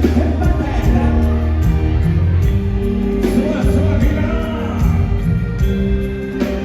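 Loud live band music with singing, heavy bass and drums, heard from in front of a mor lam concert stage.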